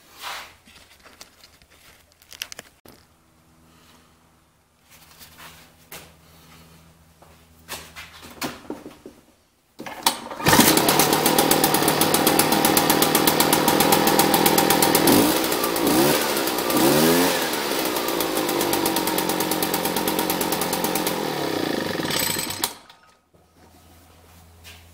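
A few faint handling knocks, then the Echo PB-500T backpack blower's two-stroke engine starts about ten seconds in and runs, revved up and down a few times, before cutting off suddenly near the end. It is the test run of a newly installed replacement carburetor.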